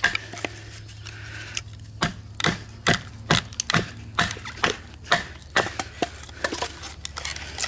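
Wooden baton striking the spine of a fixed-blade knife to drive it down through a split of wood: a steady run of sharp wooden knocks, about two a second.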